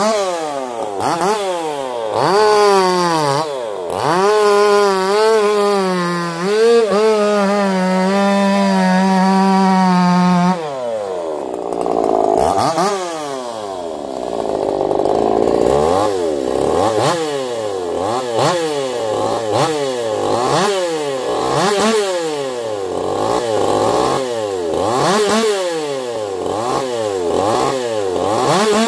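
Modified Echo CS-4910 two-stroke chainsaw, fitted with a taper-top piston and crank swap, revving in quick throttle blips. About four seconds in it is held at high speed for about six seconds. The revs then drop sharply, and it goes on revving up and down about once a second.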